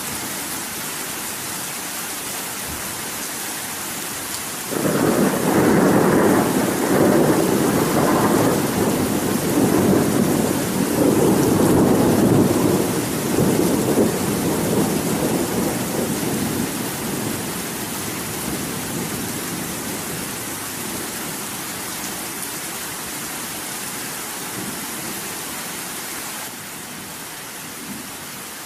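Steady rain hissing throughout, with a thunderclap about five seconds in that rolls on as a long rumble in several swells and slowly fades away.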